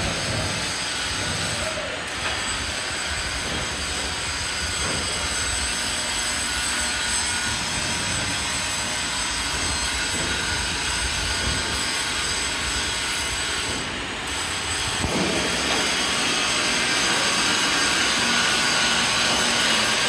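Agitator drive of a 1,000-litre reactor running under a water trial: a steady mechanical running noise that grows slightly louder about fifteen seconds in.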